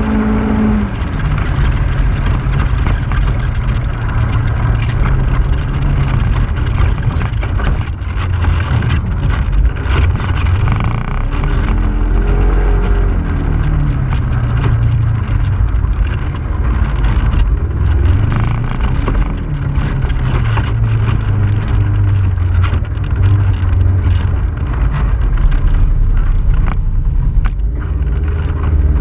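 2015 Polaris RZR XP4 1000's parallel-twin engine running under way, its pitch rising and falling repeatedly with the throttle. Scattered short knocks come through over the engine noise.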